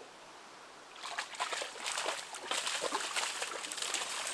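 A Dutch shepherd splashing and pawing in a muddy trail puddle: an irregular run of wet sloshes and slaps that starts about a second in and keeps going.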